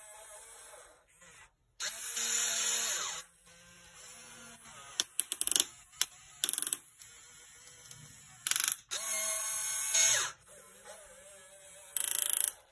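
Electric motors of a Huina radio-controlled excavator whirring in short separate bursts as it slews and works its boom, the longest lasting about a second and a half. A quick cluster of clicks comes about five seconds in.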